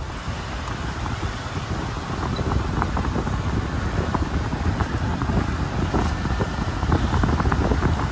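A road vehicle running, with wind buffeting the microphone: a steady low rumble under dense crackling.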